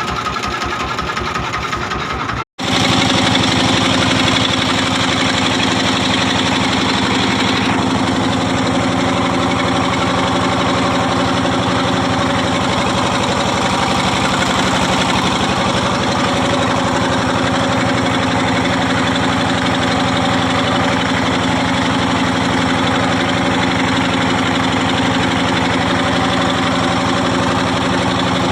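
A small fishing boat's engine running steadily underway, with an even knocking beat. About two and a half seconds in the sound drops out for an instant, then carries on a little louder.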